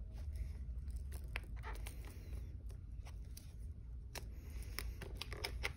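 Faint scattered clicks and rustles of fingers handling a football helmet's chin strap and pressing it onto the bottom snaps, over a low steady hum.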